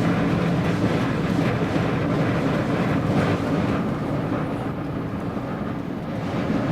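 Strong wind rumbling steadily across the microphone, with a faint low hum underneath.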